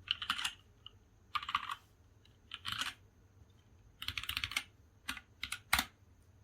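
Typing on a gasket-mounted Mark 65 mechanical keyboard with brand-new, not broken-in stock Kailh Cream linear switches and PBT Cherry-profile keycaps: four short bursts of quick keystrokes, then three single, sharper key presses near the end.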